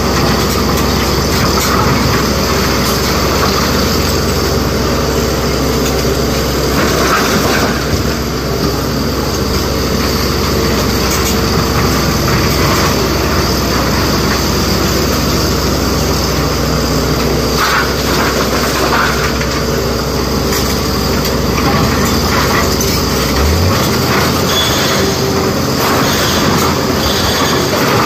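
SANY SY225 hydraulic excavator's diesel engine running steadily under load as its bucket digs and scrapes through a pile of broken quarry rock, with occasional knocks of stone. A deep low hum beneath it cuts off late on.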